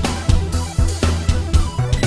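Electronic dance music with a steady kick-drum beat, about two beats a second, over a held bass line; no vocals.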